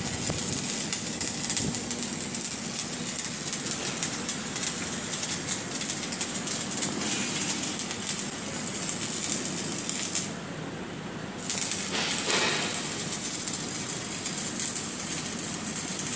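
Automatic arc welder running a weld along a steel semi-trailer main beam: a steady crackling sizzle from the arc. About two-thirds of the way in, the arc stops for about a second and then strikes again.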